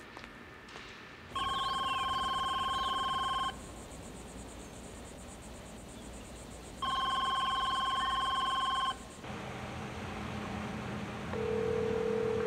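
1980s car phone ringing with an electronic warbling trill, two rings of about two seconds each, a few seconds apart. After the second ring a low steady hum sets in, with a short steady tone near the end.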